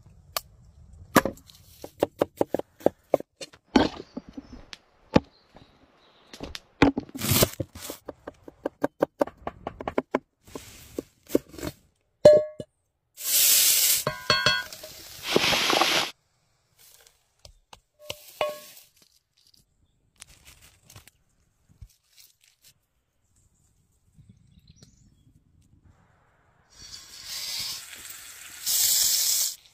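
Knife chopping on a wooden board in quick runs of strokes, several a second. Then chopped onion sizzles in a cast-iron skillet for about three seconds, and a second hissing burst comes near the end.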